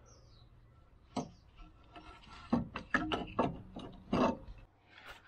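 Irregular knocks, clicks and scraping of a hand tool and gloved hands against metal parts under a car, during work on an engine mount.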